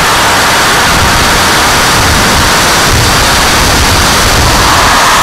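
Steady, loud rush of turbine jet engine and airflow picked up by a camera riding on a turbine-powered RC jet during its takeoff run and climb-out, with no clear tones standing out.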